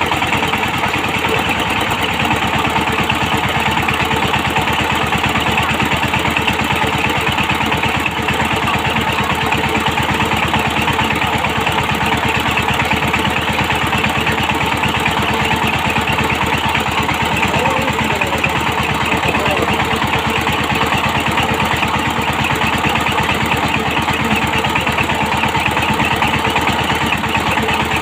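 Walk-behind power tiller's single-cylinder engine running steadily, its rapid firing pulses even and unbroken.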